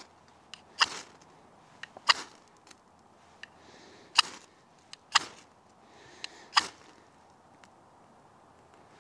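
Fire steel (ferro rod) scraped hard with the back of a knife blade, five sharp scrapes between one and two seconds apart with a few lighter ticks between, striking sparks to light a tinder.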